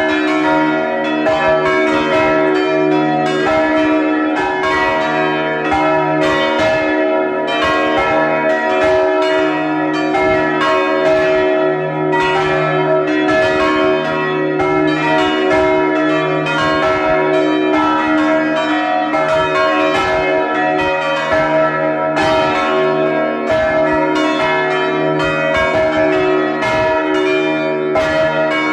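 Full peal of the church's swinging bronze bells, rung together in volée rétrograde and heard from inside the belfry. Strikes overlap densely and without pause over a steady hum of ringing tones.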